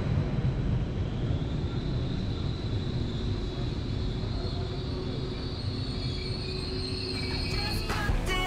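A Eurobahn Stadler FLIRT electric multiple unit rolling slowly along the platform: a steady low rumble from the running gear, with a thin high whine above it.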